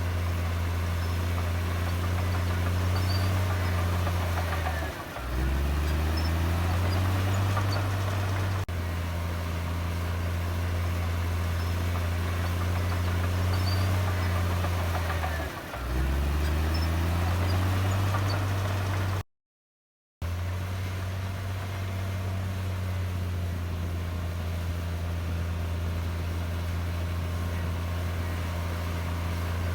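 Diesel engine of a Komatsu D58E bulldozer running steadily, its engine speed dropping sharply and climbing back twice, about five seconds in and again about halfway through. Near two-thirds of the way through, the sound cuts out completely for about a second.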